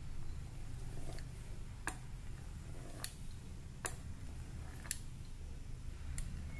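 Fluted pastry-cutter wheel rolled in strokes across rolled-out dough on a wooden board, with a sharp tick about once a second, six in all, as each cut begins or ends. A low steady hum runs underneath.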